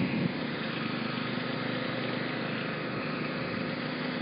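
Steady engine hum with a constant low drone, like idling vehicles.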